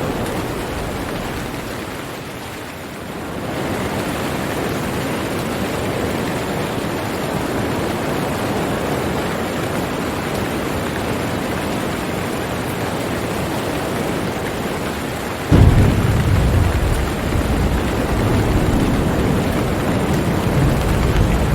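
Steady rain, with a clap of thunder breaking in suddenly about fifteen seconds in and rumbling on loud and low.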